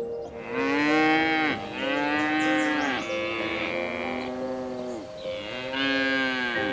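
Cattle mooing: a run of long moos, each rising and then falling in pitch.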